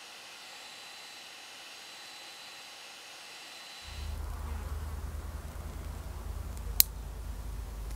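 A steady faint hiss. About halfway it gives way to a low steady rumble, and near the end a split ring being worked onto a metal spoon lure with split-ring pliers gives one sharp metallic click.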